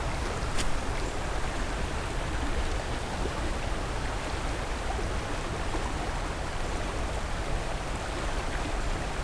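Steady rush of a creek running high and fast.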